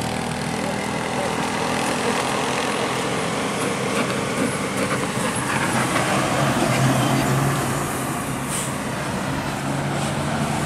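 Heavy diesel vehicles passing close on a winding road: a tanker truck's engine swells as it goes by, followed by a tour bus, over steady tyre and traffic noise. A short hiss comes late on.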